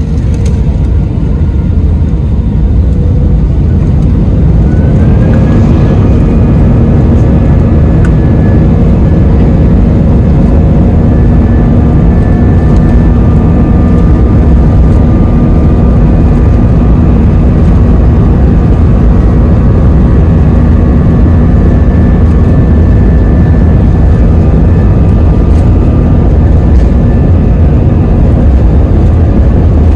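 Airbus A320-family jet airliner's engines heard from inside the cabin: a loud, steady rumble whose engine tones rise in pitch about five seconds in and then hold, as the engines come up to high thrust for the takeoff run.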